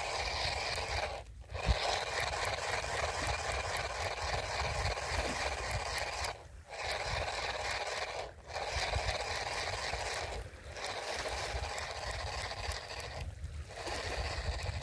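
Fishing reel being cranked in spells of a few seconds, a steady whir that stops and starts again five times, over a low rumble of wind on the microphone.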